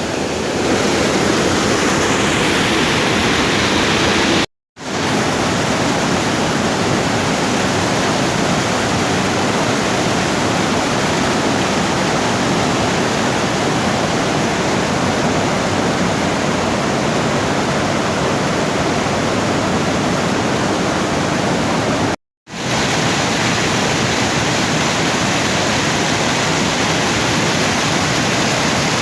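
Fast-flowing river rushing over rocks: a loud, steady roar of water that cuts out completely twice for a fraction of a second.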